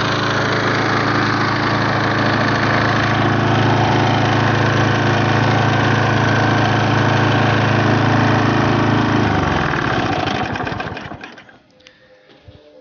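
Briggs & Stratton Quattro 4 HP four-stroke single-cylinder mower engine running steadily, just revived after years seized. About nine seconds in it slows, its pitch dropping, and dies away within about two seconds.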